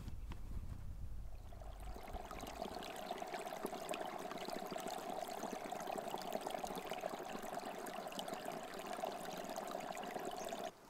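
Small woodland stream trickling over moss and leaf litter, a steady burble that cuts off abruptly near the end.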